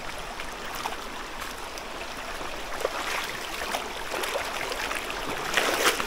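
Shallow river water running over stones, with steps in slippers splashing and crunching through it; the splashing gets louder near the end.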